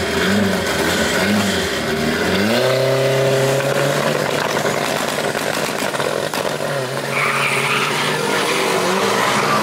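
Drag-racing cars' engines at the start line, their revs wavering, then rising sharply about two and a half seconds in and held high. The cars then launch and pull away down the strip.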